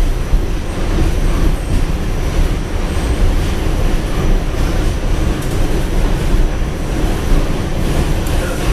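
R46 subway car running along elevated track, heard from inside the car: steady low running noise of the wheels on the rails and the car's motors.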